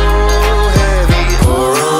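Background music: a pop/R&B song with a held melodic note over a steady deep bass and a beat.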